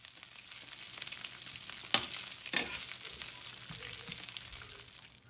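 Cashews and raisins sizzling in hot ghee in a stainless steel pan as they fry toward golden brown, stirred with metal tongs. Two sharp clicks of the tongs against the pan, about two seconds in and again half a second later, are the loudest sounds.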